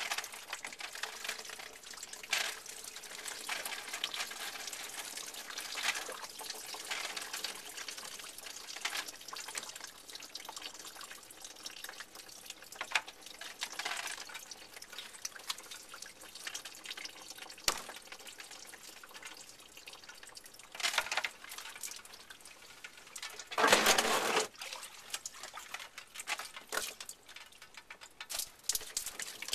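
Water running and dripping out of the freshly cut end of a 3/4-inch PEX hot water line as the water left in the line drains, with a louder gush about three-quarters of the way through.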